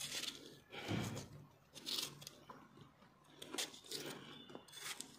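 Knife cutting pieces off a pear held in the hand: a series of short crunchy cuts, about one a second.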